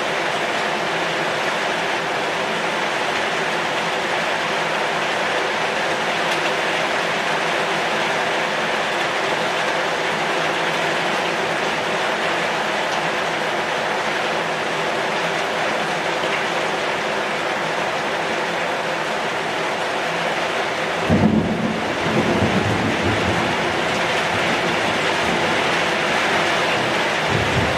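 Heavy rain falling on a corrugated zinc roof and on the leaves of a pucuk merah shrub, a steady, even hiss. About three-quarters of the way through, a low rumble of thunder joins it for a few seconds.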